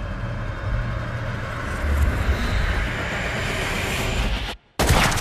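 Steady helicopter noise: a low rotor and engine rumble under a rushing hiss that swells. Near the end the sound cuts out for a moment of silence, then comes back with a sudden loud burst.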